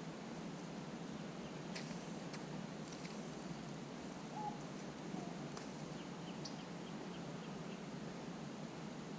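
Steady outdoor background hum with a few faint, short bird chirps in the middle and a handful of sharp clicks.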